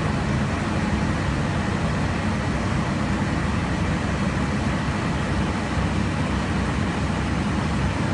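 Steady, even jet aircraft cabin noise from engines and rushing air, heard from inside an aircraft flying alongside at cruise altitude; deep and unchanging.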